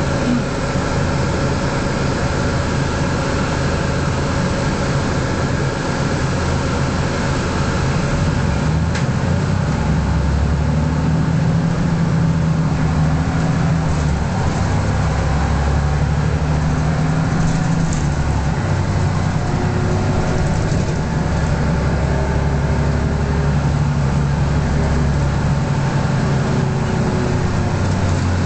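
Mercedes-Benz O405G articulated bus's diesel engine and drivetrain running steadily, heard from inside the moving bus. From about ten seconds in, the low engine note swells several times for a few seconds at a time.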